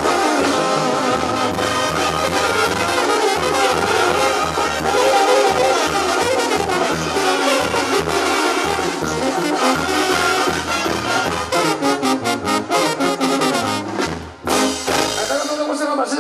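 Mexican banda brass band playing live: trombones and trumpets over a pulsing bass line with a steady beat. The music breaks off about two seconds before the end.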